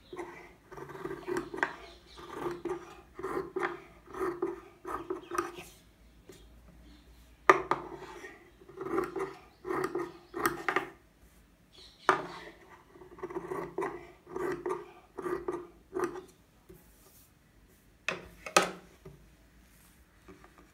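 Tailor's scissors cutting through blouse fabric on a table: runs of snips about two a second, with short pauses between the runs, and one sharp snip near the end.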